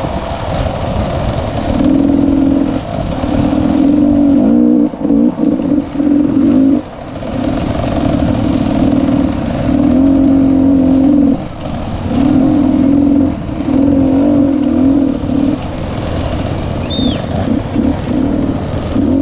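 Enduro dirt bike engine under way, the throttle opened in bursts of a second or two and rolled off between them.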